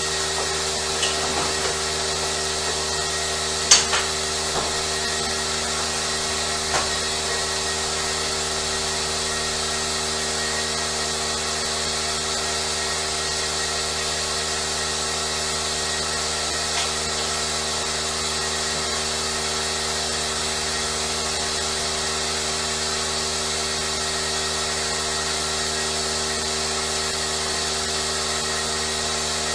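Electric sheep-shearing handpiece running steadily with a constant whir, with a few sharp clicks in the first several seconds.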